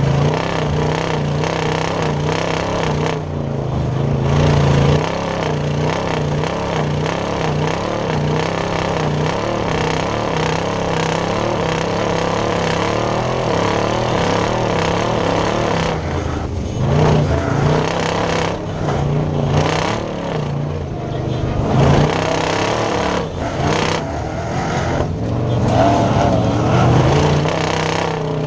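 Chevrolet S-10 off-road race truck's engine running hard at speed, its pitch wavering steadily. In the second half the revs drop and pick up again several times.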